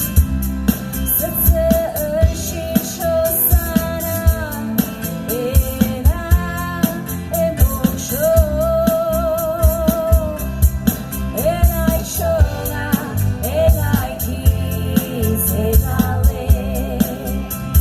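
Music with singing: a voice sings held notes with vibrato over a steady drum beat.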